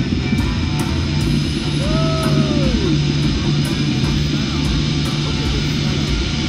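Live heavy rock played by a band in an arena, with distorted guitar and bass holding a steady, loud low riff. About two seconds in, a note slides downward in pitch.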